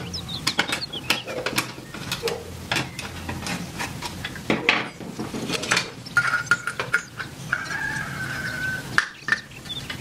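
Small metal parts being handled and screwed together: repeated clicks, taps and clinks of a screwdriver, screws and an aluminium fan bracket. A squeak comes in twice in the second half, once briefly and then for about a second.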